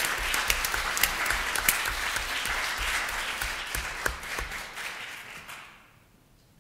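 Audience applauding, a dense patter of many hands clapping that dies away about five and a half seconds in.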